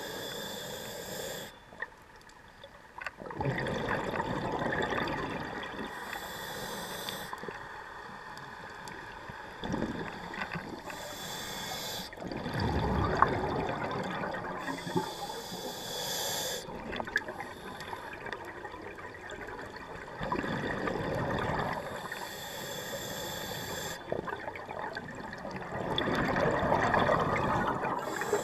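A scuba diver breathing through a regulator underwater: a hiss on each inhale, then a bubbling rush of exhaled air, repeating every few seconds.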